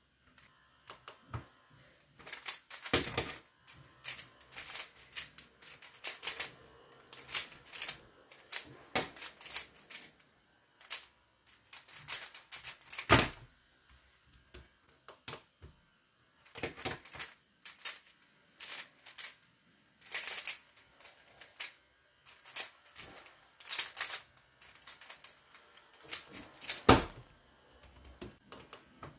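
Typing on a laptop keyboard: quick runs of key clicks broken by short pauses, with a few louder single clicks among them.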